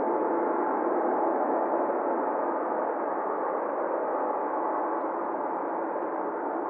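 Steady static hiss from an airband radio feed between transmissions, with a faint constant tone running through it and a narrow, telephone-like sound.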